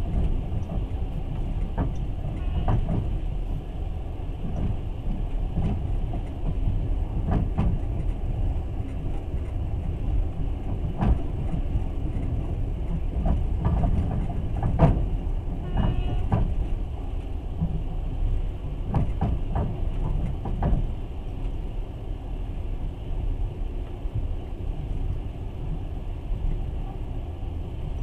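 Passenger train carriage running along the rails, heard from inside: a steady low rumble with scattered knocks and rattles from the wheels and car body.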